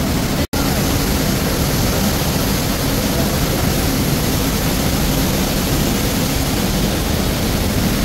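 A waterfall's loud, steady rush of falling water, with a split-second break about half a second in.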